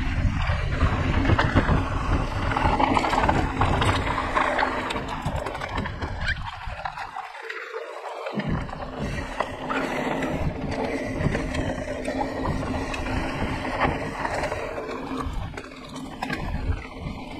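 Wind rushing over the camera's microphone as a mountain bike is ridden along a dirt trail, with scattered clicks and rattles from the bike over rough ground. The low rumble drops out for about a second roughly seven seconds in.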